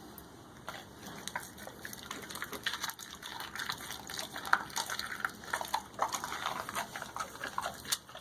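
Great Dane mouthing a piece of raw chicken: wet, irregular smacking and clicking from its jaws.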